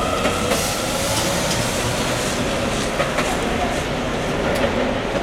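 Bombardier TVR rubber-tyred guided tram pulling away, its electric traction motors whining and rising in pitch, then fading into a steady rolling hiss as it moves off. A few sharp clicks are heard.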